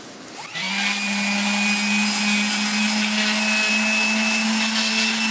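Electric palm sander switched on about half a second in, then running steadily with 150-grit paper against the car's rusted body panel, a steady motor hum under the hiss of the paper on the metal.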